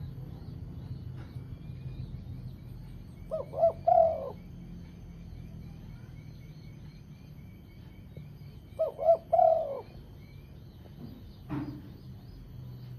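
Spotted dove cooing: two three-note phrases, two short notes then a longer one, about five seconds apart. Small birds chirp faintly throughout.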